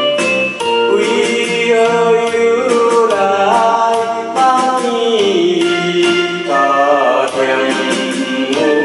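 A song: a solo voice sings long, gliding melody lines over an instrumental backing track.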